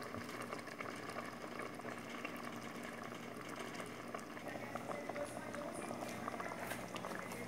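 A pot of sausage and vegetables in a watery tomato sauce boiling, with a steady run of many small bubbles popping.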